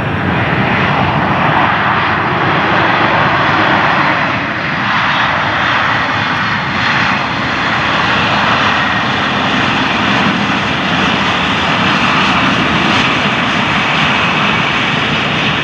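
Airbus A320-232 jet engines (IAE V2500 turbofans) running loud during landing: a steady, broad rushing noise with a faint high whine above it, dipping briefly about four and a half seconds in.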